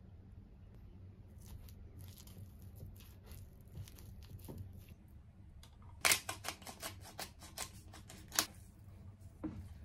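Wooden spatula stirring mashed squash in a glass bowl with soft scrapes, then a hand pepper mill ground over the bowl, a run of sharp clicks about three or four a second starting about six seconds in.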